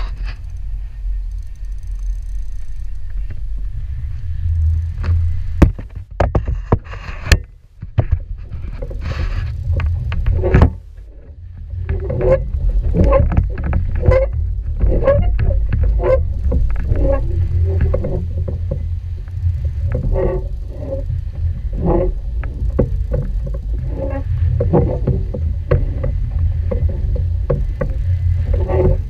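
Steady low rumble of a boat running on open water, with wind on the microphone. A few sharp knocks come about six to seven seconds in, and short repeated pulses run through the second half.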